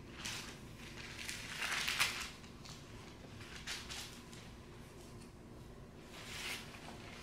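Thin Bible pages rustling as they are turned and handled on a pulpit, a few soft crinkling swishes, the loudest about two seconds in.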